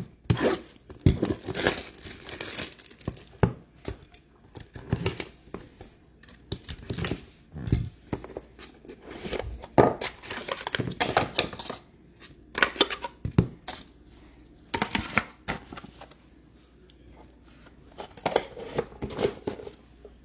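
Plastic wrapping and packaging being torn and crinkled open by hand, in irregular crackling strokes, as a box of trading cards is opened.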